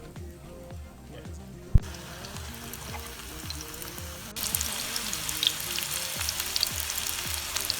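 Panko-crumbed salmon pieces frying in shallow oil: a crackling sizzle that gets noticeably louder about four seconds in. A single sharp knock sounds a little under two seconds in.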